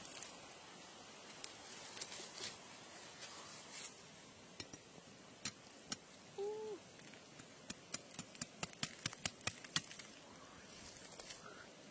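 A run of sharp taps, coming faster to about four a second over a couple of seconds, as a metal blade knocks against a hard termite mound. Just before, a single brief pitched call sounds.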